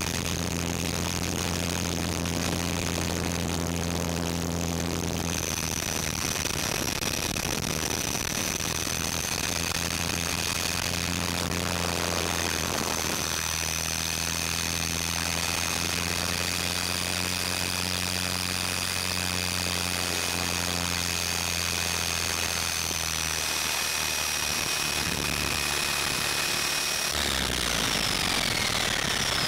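450-size electric RC helicopter with a Scorpion 2221-8 brushless motor running in flight: a steady low rotor thrum under a high, thin motor and gear whine. Near the end the whine falls away in pitch as the motor spools down once it has set down.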